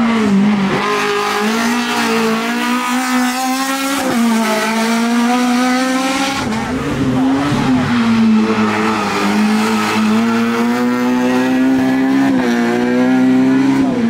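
Rally car engine at high revs on a special stage. Its pitch drops and climbs again several times with gear changes and lifts through the bends.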